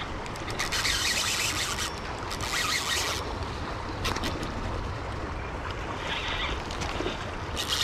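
A spinning reel running in several short buzzing bursts as a hooked steelhead is played, over steady wind on the microphone.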